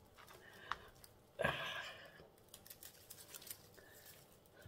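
Soft rustling and crunching of potting soil as a hand presses and firms it around a plant in a plastic pot, with scattered small clicks and one louder rustle about a second and a half in.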